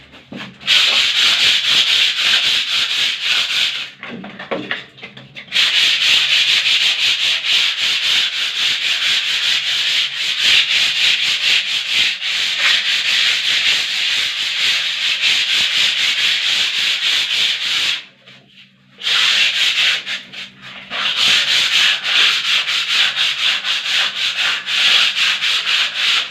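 Sandpaper scraping over a skim-coated wall in a steady stream of rapid strokes, making a loud, hissy rasp. The sanding stops briefly about four seconds in and again around eighteen seconds.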